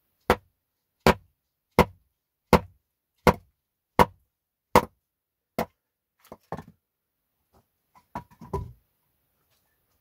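Batoning kindling: a wooden stick strikes the back of a hatchet, driving it through firewood on a chopping block, eight sharp knocks about three-quarters of a second apart. Near the end come a few softer knocks and a short clatter of wood.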